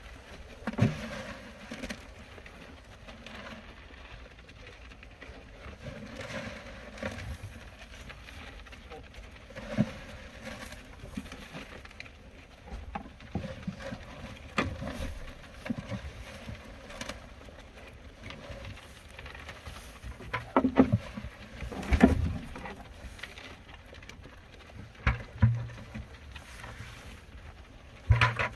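Scattered knocks and thumps, a handful spread out, loudest about twenty and twenty-two seconds in, over faint background noise.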